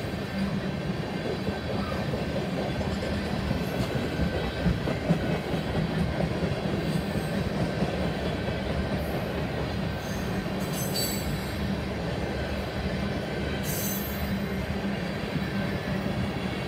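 Loaded tank cars of a freight oil train rolling past at steady speed: a continuous rumble and clatter of steel wheels on rail joints. Two brief high-pitched wheel squeals come about 11 and 14 seconds in.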